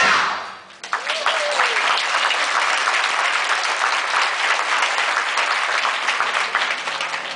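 The last sung chord of the company's number fades out, and about a second in a theatre audience breaks into steady applause that carries on as the curtain comes down.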